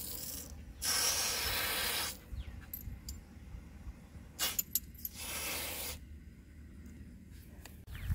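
Outdoor garden-hose spigot being turned by hand, most likely shut off after filling the troughs. Water hisses through the valve in several bursts as the handle is worked, the longest about a second in, with a few clicks from the valve handle between the bursts.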